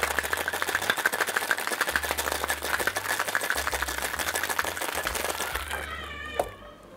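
Ice cubes rattling hard in a stainless-steel cocktail shaker being shaken fast, a dense rattle that stops about six seconds in. A single sharp knock follows near the end.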